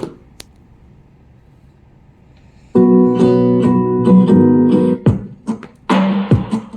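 Music playing from a portable Bluetooth speaker: after a couple of clicks, guitar music starts suddenly and loudly about two and a half seconds in, with drum hits coming in near the end.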